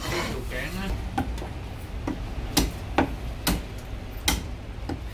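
Meat cleaver chopping marinated goose on a thick wooden chopping block: about seven sharp, unevenly spaced chops. Voices are heard in the shop near the start.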